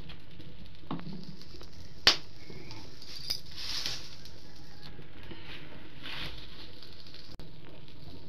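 Wood fire crackling in a mud stove, with a sharp snap about two seconds in and brief hissing a little later and again near the end.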